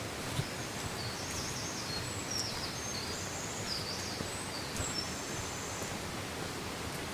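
A small songbird singing a run of quick, high, warbling phrases from about a second in until near the end, over a steady rushing noise.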